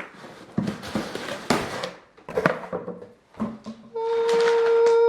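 Handling and opening a cardboard package: scattered rustles, clicks and knocks. About four seconds in, a steady pitched tone starts and holds, louder than the handling.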